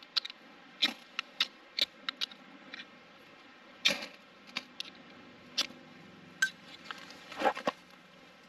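A utensil clicking and scraping against a dish or food pouch while someone eats: about a dozen light, irregular taps, the loudest a little before halfway and near the end.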